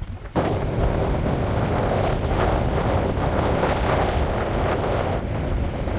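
Wind buffeting the microphone: a steady rushing noise with a heavy low rumble, starting abruptly about half a second in.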